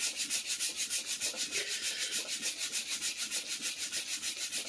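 Hand sanding of a wooden Telecaster guitar body with a sanding disc on a hand-held pad: quick, even back-and-forth rubbing strokes, several a second. The sanding smooths down glue-and-sawdust filler in tear-out on the body's top.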